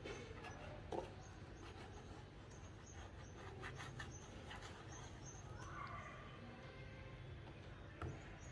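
Faint scratching of a bristle paintbrush dragged through thick white paint on a stretched canvas, in short strokes, with a soft knock about a second in.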